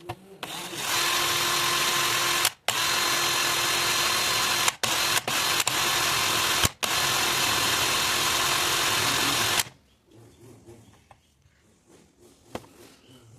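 An electric power tool motor running at a steady speed with a constant whine, cut off briefly a few times and stopping about ten seconds in.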